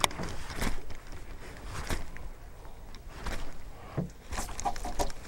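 A fishing lure cast from a small boat and worked back across the water's surface: a handful of short, irregular clicks and splashes.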